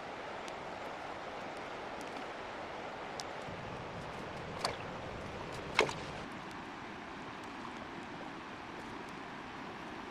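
Steady rush of flowing water, with two sharp knocks about four and a half and six seconds in, the second louder.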